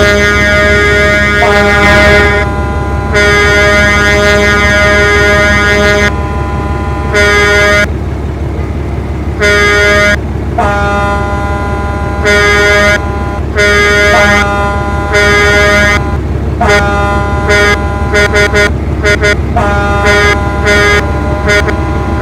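Several vehicle horns honking in repeated blasts of varying length, two or more different pitches sounding together at times. Near the end the blasts turn into quick short toots. A steady low rumble runs underneath.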